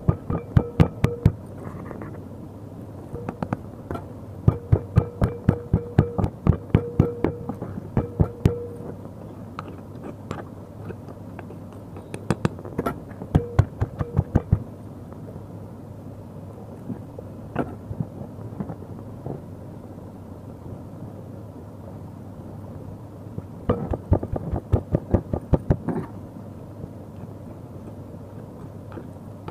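Stone pestle pounding chutney ingredients (green chilli, garlic, coconut) in a stone mortar. The pestle makes runs of sharp knocks, about two or three a second, in several spells with short pauses between them.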